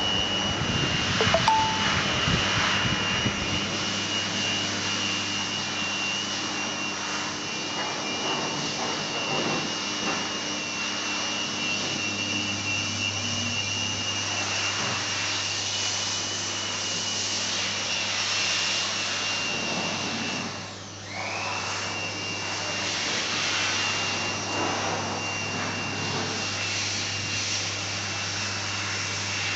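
1500 W handheld fiber laser welding machine running: a steady whine and hiss over a low hum, with a high steady tone. About twenty-one seconds in it briefly drops away, and the tone glides back up.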